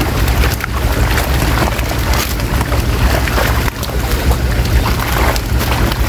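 Many fish thrashing and splashing in shallow water crowded inside a seine net, with scattered irregular splashes as they are grabbed by hand, over a steady low rumble.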